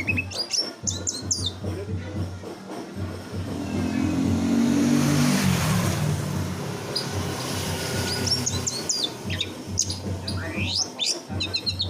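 Songbirds singing in quick bursts of sharp chirps and trills, the rapid-fire 'tembakan' song used to train magpie robins. In the middle the birds drop out under a swell of noise that rises and fades, with a steady low hum underneath throughout.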